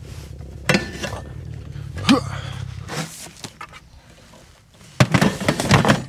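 Things being handled and knocked about inside a van: a sharp knock, another about two seconds in, then a quick run of clattering knocks near the end. A low hum underneath stops about halfway through.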